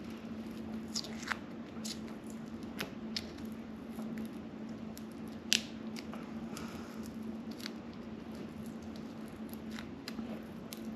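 Scattered small clicks and taps of hands pressing parts onto an RC car chassis, over a steady low hum, with one sharper click about five and a half seconds in.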